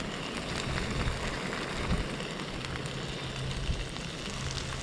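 Hot frying pan sizzling steadily as burger buns toast in it.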